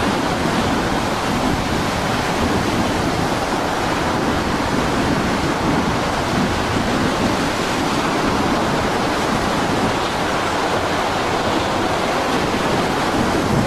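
Heavy storm surf breaking and churning, with wind: a loud, steady rush of noise that cuts in suddenly.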